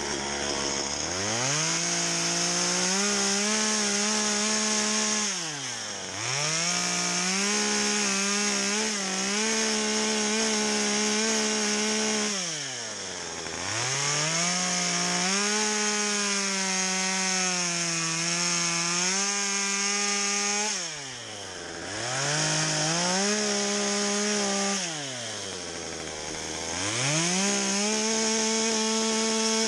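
Stihl two-stroke chainsaw cutting into a spruce log with plunge and angled cuts. The engine revs up to full throttle for each cut and falls back toward idle between cuts, five times.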